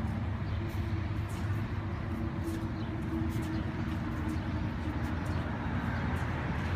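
Steady low rumble of outdoor background noise with a faint steady hum.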